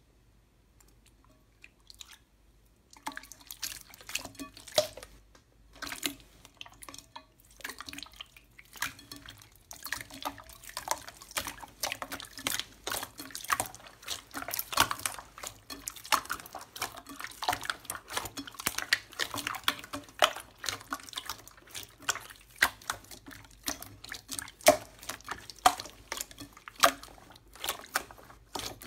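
Clear slime being squeezed, stretched and pressed by hands: a dense run of short, wet, sticky clicks and pops, starting about three seconds in.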